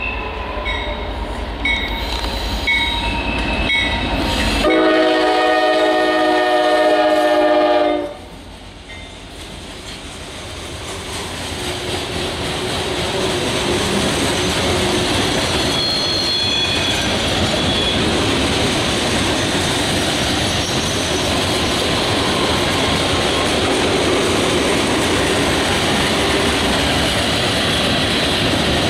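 CSX diesel locomotives (a GE ES44DC leading) rumbling past and sounding the horn in one long blast of about three seconds, which cuts off about eight seconds in. A long string of loaded coke hopper cars then rolls by with a steady rush of wheel-on-rail noise and clickety-clack.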